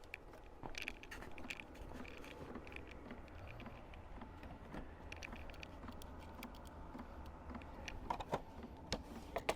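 VEVOR 5 kW Chinese diesel heater in its start-up cycle just before ignition, giving a steady low hum, with scattered light clicks about a second in, around the middle and near the end.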